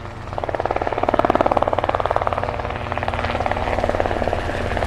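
Helicopter rotor chopping in a rapid, even rhythm, growing louder over the first second and then running steadily.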